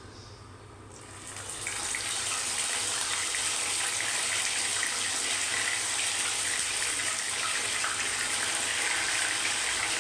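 Chicken leg piece deep-frying in hot oil, back in the oil for a second fry after being pressed. The sizzle swells about a second in and then holds as a steady loud hiss.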